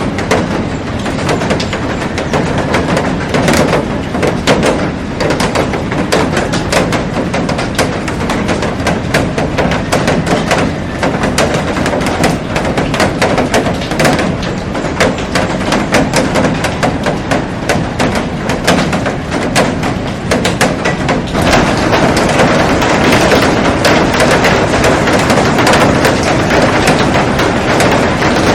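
Heavy rain falling on a glass roof and garden, a steady dense hiss crowded with sharp taps of drops striking the glass. The rain grows a little heavier about three-quarters of the way through.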